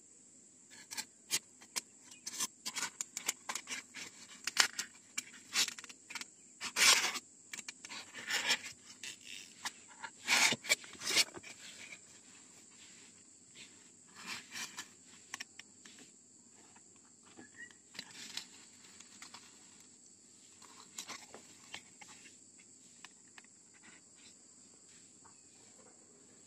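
Handling noise of a small speaker driver being pushed and scraped into a polystyrene foam block: a dense run of sharp scrapes and clicks for about the first twelve seconds, then sparser, fainter clicks while a hot glue gun is worked around the driver's rim. A steady high-pitched whine runs underneath throughout.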